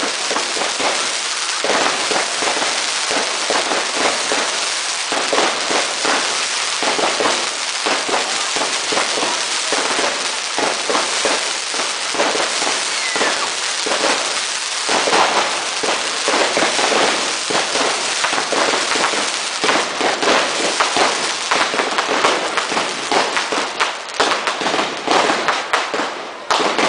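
Dense barrage of Class 2 consumer fireworks: rapid, overlapping bangs and crackling with no break, thinning out a little near the end.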